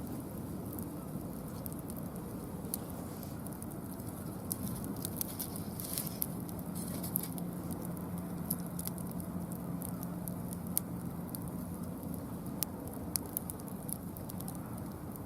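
Mixed hardwood burning in a fire-pit stand, crackling with scattered sharp pops over a steady low rumble.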